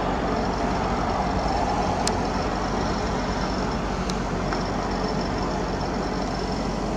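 Steady road-traffic and vehicle engine noise: an even rush with a low engine hum underneath, unchanging in level.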